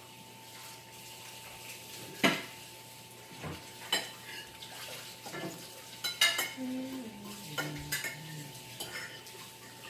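Kitchen dishes and metal utensils clinking and knocking, with scattered sharp clinks, the loudest a little over two seconds in and a cluster about six seconds in.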